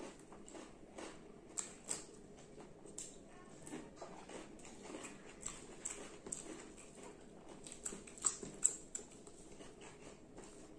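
Close-miked eating with the hands: wet chewing and lip-smacking, with scattered sharp clicks and the soft squish of fingers working rice and curry on the plates.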